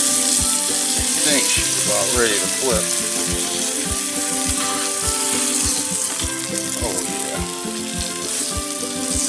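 Bluegill frying in butter in a small pan on a propane camp stove, sizzling steadily. Background music with a steady beat plays over it.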